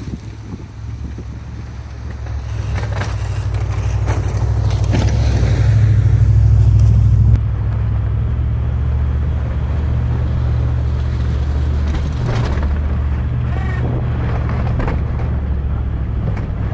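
Ram pickup truck's engine running with a deep, steady drone, growing louder over several seconds and then dropping sharply about seven seconds in, with scattered knocks on top.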